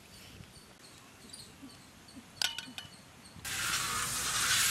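Faint insect chirping repeating a few times a second, then a single sharp clink with a brief ring about halfway through. A loud, steady, scratchy rubbing sound starts about three quarters of the way in, as hands smear wet clay paste over a large metal pan.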